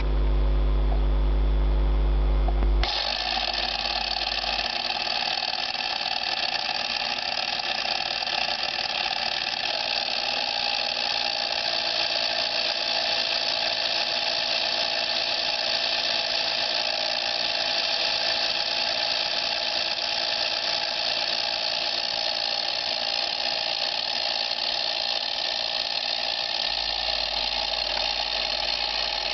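Universal-3 hobby lathe with its angle attachment fitted, running steadily with a mechanical whir and gear noise. About three seconds in, a deep steady hum gives way to a brighter, higher-pitched running sound that holds to the end.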